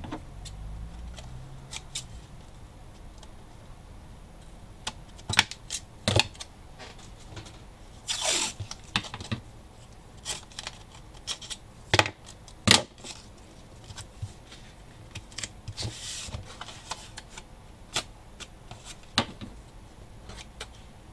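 Cardboard pieces and paper tape being handled on a cutting mat: scattered taps and clicks, with two short rasps of tape being pulled and cut with scissors.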